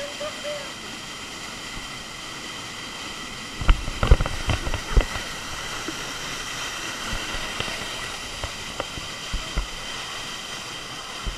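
Waterfall rushing steadily, with a quick cluster of thumps about four seconds in and a few lighter knocks later.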